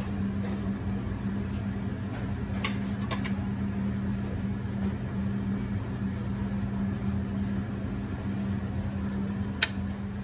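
Steady low mechanical hum of buffet restaurant equipment with a strong even tone, with a few light clicks about two and a half to three seconds in and one sharper click near the end.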